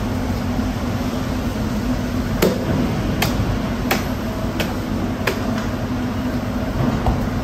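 Steady low machinery hum, with five sharp knocks evenly spaced a little under a second apart, starting about two and a half seconds in.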